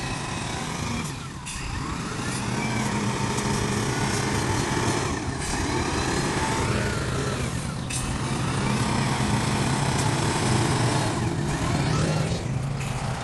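A heavy earthmoving machine's diesel engine runs steadily, with its note rising and falling. Several short, sharp knocks come through it.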